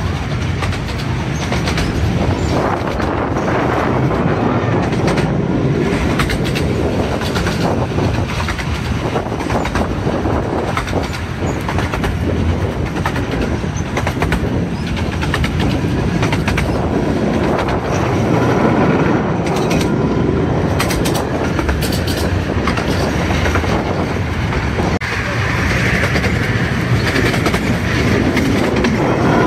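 A 15-inch gauge Romney, Hythe and Dymchurch Railway train running steadily, heard from a moving carriage. There is a continuous rumble of the carriage wheels on the track, with irregular clicks as they pass over rail joints.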